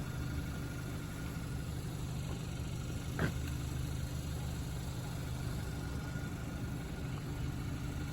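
Car engine idling steadily, with one short, high chirp about three seconds in.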